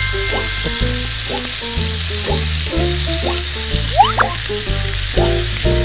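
Squid rings searing in an oiled frying pan with onion and cabbage, sizzling steadily as they brown, with light background music under it.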